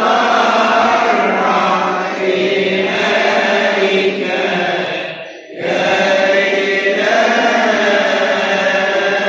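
Coptic liturgical chanting: voices holding long, drawn-out notes, with a brief break about five and a half seconds in.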